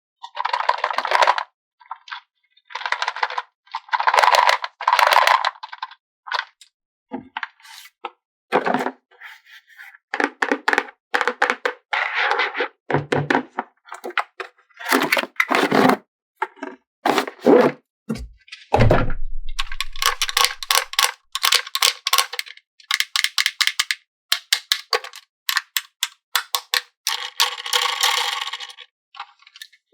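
A run of sharp clicks, clacks and short rattling bursts, like small plastic toys and parts being handled, snapped together and set down, with brief gaps between bursts.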